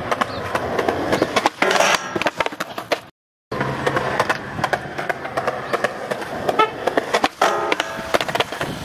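Skateboard wheels rolling on a concrete sidewalk, with many sharp clacks and knocks of the board. The sound drops out completely for a moment about three seconds in.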